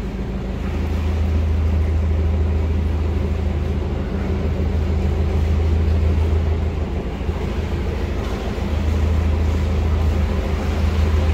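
Narrowboat's diesel engine running steadily at cruising speed inside a canal tunnel: a continuous low drone that eases slightly a couple of times and comes back.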